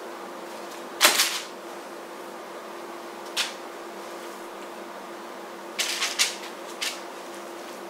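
A few sharp light taps and knocks as raw spiced chicken strips are laid onto a paper-lined baking sheet, the loudest about a second in and a small cluster near the end, over a steady faint hum.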